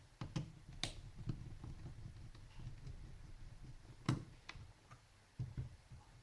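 Scattered light clicks and taps of a screwdriver and small parts being handled inside an opened laptop during disassembly. The sharpest clicks come just under a second in and about four seconds in.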